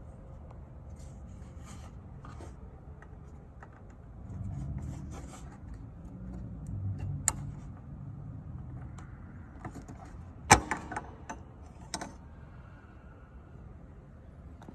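Hands rubbing and fumbling against plastic behind a car headlight housing, then a sharp click about ten seconds in, followed by a few smaller clicks, as the halogen headlight bulb is twisted and pulled out of its socket.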